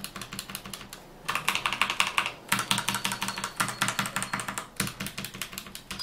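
Rapid typing on a Zebronics Nitro Pro mechanical keyboard with Outemu Red linear switches: fast runs of key clicks and clacks. There is a brief lull about a second in, then quicker, louder runs.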